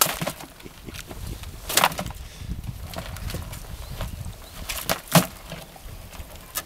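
A few sharp knocks and clatters as a monofilament fyke net is shaken out over a plastic bucket of small crabs on a small boat, over a low rumbling background.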